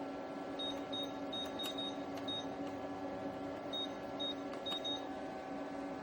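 Small portable evaporative air cooler's fan running steadily with a hum, while a series of short high beeps sounds, several in quick succession early on and a few more about four to five seconds in.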